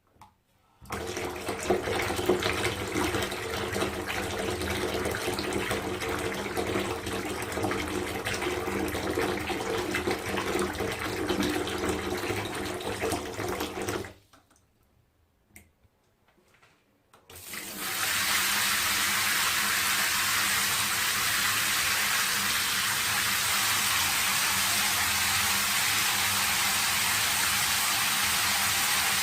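Water running from a tap into a bathtub, churning, until it stops about halfway through. After a few seconds of quiet, a steadier, hissier stream of running water starts.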